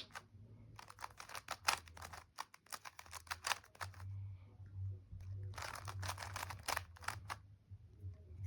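Rubik's cube being turned quickly, its plastic layers clicking in rapid runs, in two bursts with a short pause between them around the middle.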